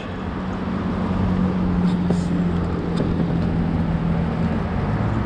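A steady low engine-like hum holding one pitch, dropping lower near the end, over the even rush of river water.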